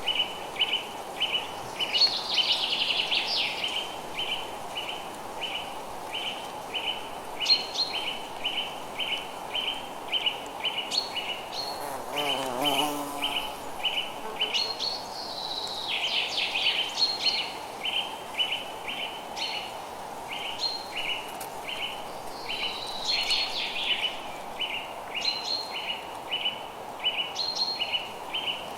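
Birds chirping and singing in short bursts over a steady chirp that repeats about twice a second. A faint, even hiss sits underneath.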